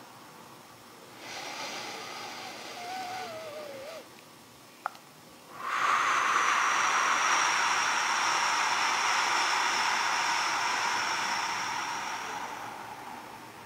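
A man's deep breath. A nasal inhale of about three seconds carries a faint wavering whistle, then comes a small click. Then a long, forceful exhale through pursed lips lasts about seven seconds, with a thin high whistle over the hiss, and fades out near the end.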